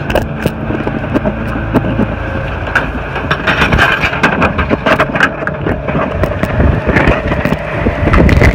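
Ford Expedition SUV driving over rough ground, heard from inside the cabin: a steady engine and road rumble with frequent knocks and rattles.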